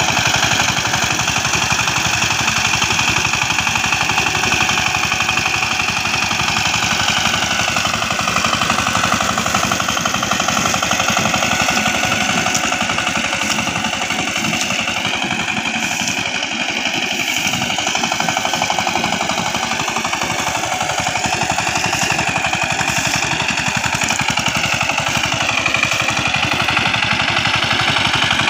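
Two-wheel walk-behind power tiller's single-cylinder diesel engine running with a rapid, steady chugging clatter as it is driven through a wet rice paddy. Its note dips briefly a couple of times, about a third of the way in and near the end.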